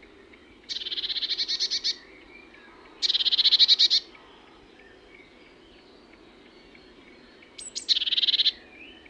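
Eurasian blue tit singing: three high, rapid trills, the last one led by two short sharp notes near the end.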